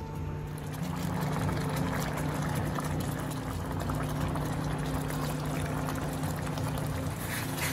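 Thick beef gravy simmering and bubbling in a frying pan, a dense steady crackle, over a steady low hum.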